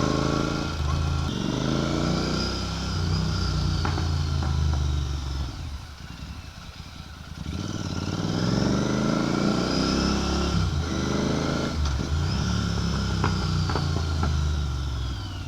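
Royal Enfield Continental GT 650's parallel-twin engine running through a Red Rooster aftermarket exhaust while riding, revving up through the gears, easing off about six seconds in and then pulling again. A few sharp pops come from the exhaust when the throttle is eased.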